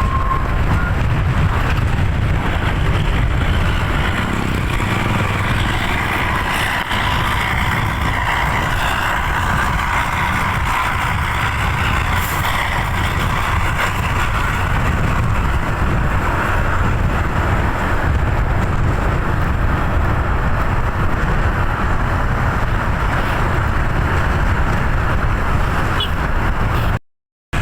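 Road traffic with heavy vehicles' engines running, a steady loud rumble with tyre and road noise. The sound drops out to silence for about half a second near the end.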